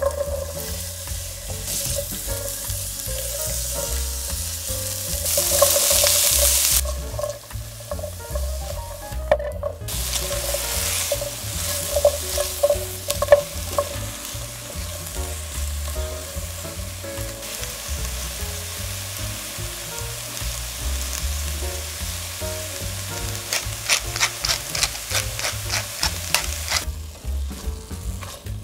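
Chopped onion and vegetables frying in oil in a stainless steel sauté pan: a steady sizzle that swells for a couple of seconds about five seconds in. A spatula scrapes and stirs through the pan, ending in a run of quick scraping strokes about four a second near the end.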